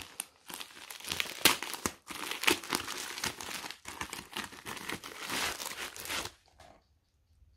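Plastic packaging crinkling and rustling as hands open a plastic mailer bag and slide a plastic-wrapped kit out of it. The crinkling stops about a second before the end.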